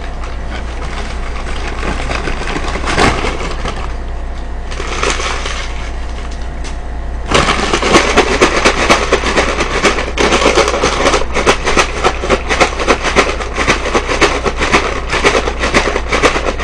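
Seasoned fries being shaken hard with seasoning powder in a paper bag: a fast, loud crackling rattle that starts about seven seconds in, after quieter rustling as the bag is handled.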